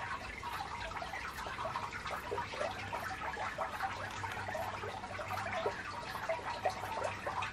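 Quiet interior room tone: a low steady hum with many faint, irregular small ticks scattered throughout.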